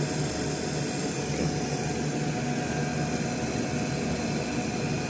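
Steady mechanical hum of running air-conditioning service equipment, even and unbroken, with a faint constant tone over it.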